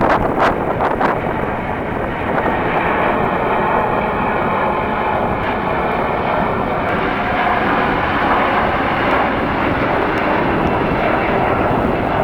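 Airliner's engines running loud as it passes close by on landing or takeoff: a steady rush of engine noise, with a faint whine about three to seven seconds in. Wind buffets the microphone in the first second.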